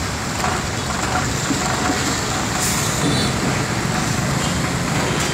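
Road traffic on a wet, potholed street: motor scooters and cars running past with a steady engine rumble and tyre noise. A short hiss comes about two and a half seconds in.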